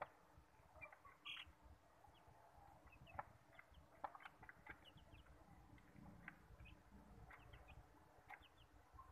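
Australorp chicks giving faint, sparse short peeps that fall in pitch, with scattered soft clicks between them.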